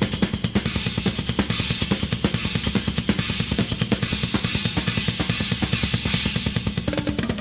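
Rock drum kit solo played live: a fast, even run of strokes, about ten a second, with the bass drum heavy under snare and cymbals.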